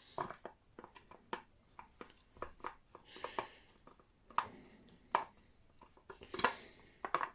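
Small scrubbing brush working paint stripper over a diecast car body in a small tub, in short, irregular scratchy strokes with light clicks and knocks against the tub.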